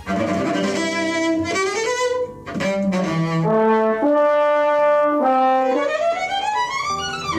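Orchestral music: bowed strings and brass holding notes that change in steps, with a brief drop about two seconds in and a rising sweep near the end.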